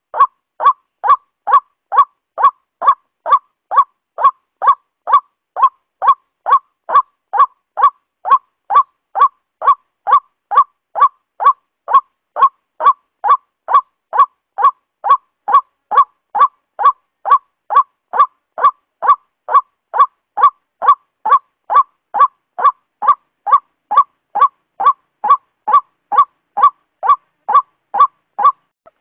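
Waterhen call: a short, nasal-pitched note repeated evenly about twice a second, each one alike, as a looped lure or ringtone recording.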